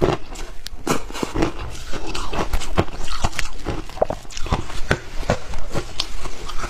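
Shaved ice being chewed and crunched in the mouth: a rapid, irregular run of sharp crackles and cracks.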